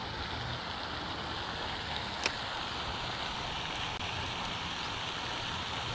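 Steady rushing splash of a pond spray fountain, with one sharp click a little over two seconds in.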